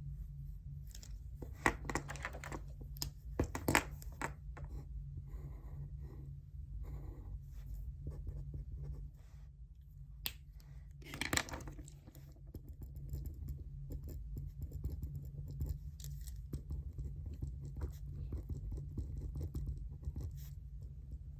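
Scratchy desk sounds of pen on paper and paper being handled, coming in irregular bursts with the strongest about 2, 4 and 11 seconds in, over a steady low hum.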